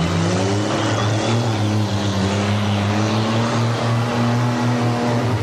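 Car engine revving hard and held at high revs in a demolition derby, its pitch creeping slowly upward.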